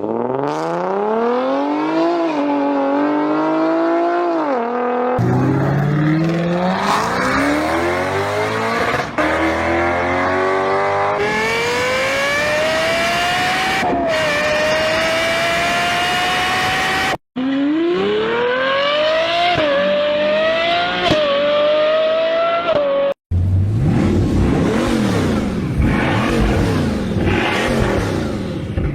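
A run of about five different car engines cut one after another, each accelerating hard, its pitch climbing and dropping back at gear changes before climbing again. The last clip has a rougher, crossing pattern of pitch sweeps.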